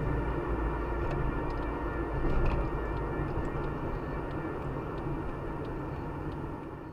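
Road noise inside a moving Nissan Micra: a steady rumble of engine and tyres on tarmac, with a few faint ticks, fading out near the end.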